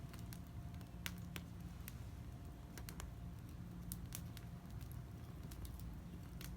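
Wood fire crackling: scattered sharp pops at irregular intervals over a low steady rumble.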